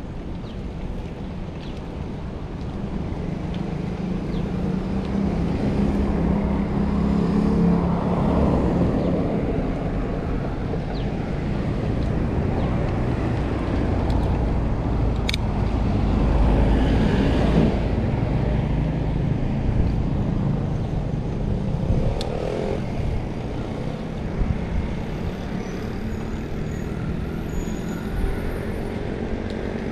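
A motor vehicle engine running over road and traffic noise. The engine hum shifts up and down in pitch and grows louder over the first several seconds.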